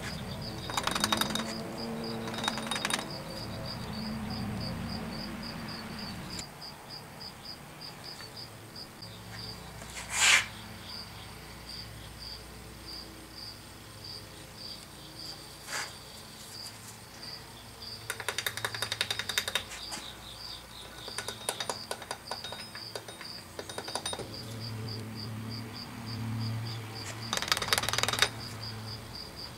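Bursts of rapid sharp clicking and tapping as metal draw tools rap foundry patterns loose and lift them from a sand mold. One single sharp snap comes about a third of the way in. A cricket chirps steadily and evenly in the background.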